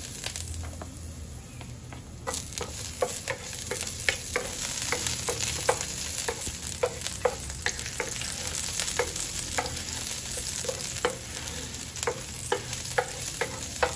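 Chopped garlic sizzling in a hot pan while a spatula stirs it, knocking and scraping against the pan about twice a second. The sizzle and stirring grow louder about two seconds in.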